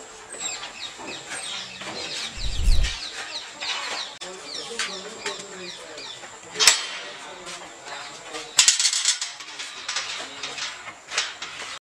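Birds chirping over and over in the background, short quick calls that fall in pitch. A low thump comes about two and a half seconds in, and sharp knocks come near seven and nine seconds in; the sound cuts off abruptly near the end.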